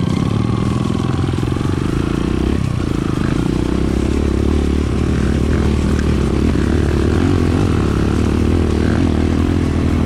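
Enduro dirt-bike engine running steadily, a low even engine note throughout.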